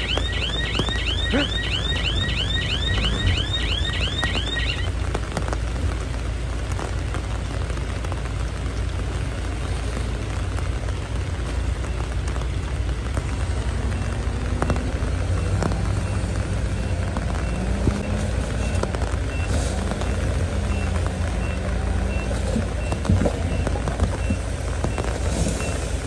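A warbling reversing alarm, about three chirps a second, sounds over the steady low running of a heavy diesel machine engine and stops about five seconds in. The engine runs on, its note shifting now and then, with a few short knocks.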